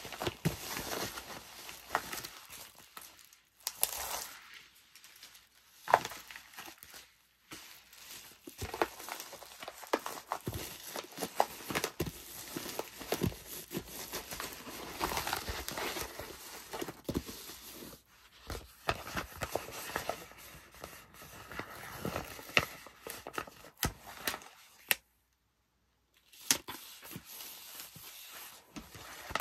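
Poly bubble mailer being handled: the plastic crinkles and rustles as its adhesive flap is folded over and pressed shut, with scattered sharp clicks and taps against the plastic. The sound breaks off briefly near the end.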